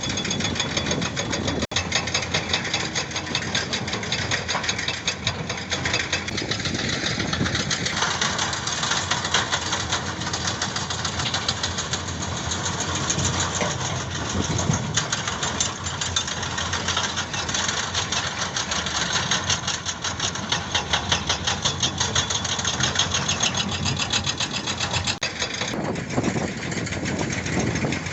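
Heavy diesel construction machinery running at a construction site, with a rapid, even pulsing or knocking that runs through most of the stretch.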